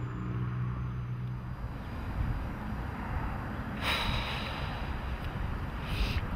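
Strong wind buffeting the microphone, a low rumbling with two louder hissing gusts about four and six seconds in. Music fades out in the first second and a half.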